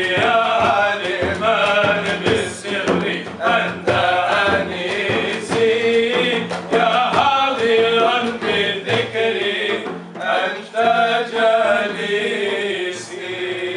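Several men singing an Arabic devotional nasheed together, a hand-struck frame drum (daf) keeping a steady beat under the voices.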